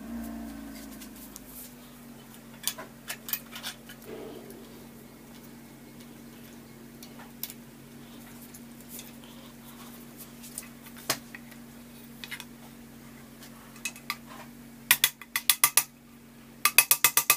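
Light metallic clicks and clinks of scooter parts being handled, with quick runs of clicking about fifteen and seventeen seconds in, over a steady low hum that slowly fades.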